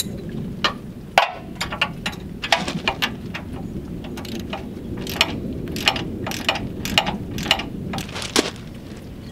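Irregular metallic clicks and clinks, about two or three a second, of a wrench tightening the nut under a camper's tongue-jack mounting plate, over a steady low background noise.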